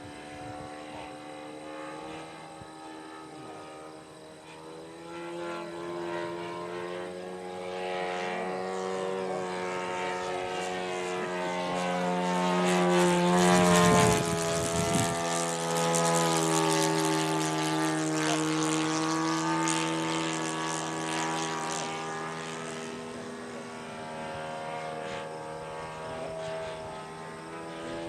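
Radio-controlled model Hawker Hurricane in flight, its propeller droning steadily. The drone swells to a loud pass about halfway through, shifts in pitch as the plane goes by, then fades as it flies away.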